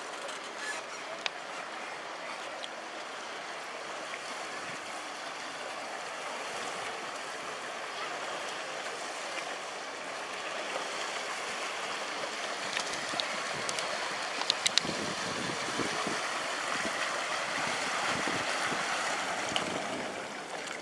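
A passenger ferry coming alongside the quay: a steady rush of churned water and engine noise that grows louder as the boat draws near. A few sharp clicks come about two-thirds of the way through.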